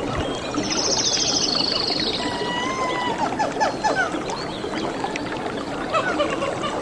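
Nature soundscape of wild animal calls: a dense chorus of short chirps and clicks, with a bird's fast, high trill in the first two seconds and a few whistled notes after it.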